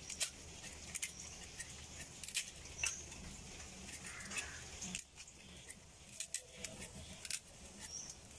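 A knife blade scraping scales off a small fish in quick, irregular strokes: a string of faint, sharp scrapes and clicks.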